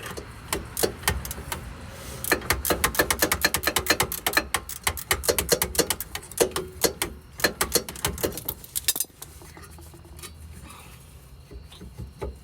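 Ratchet wrench clicking rapidly, several clicks a second, as a brake bolt is turned; the clicking stops about nine seconds in.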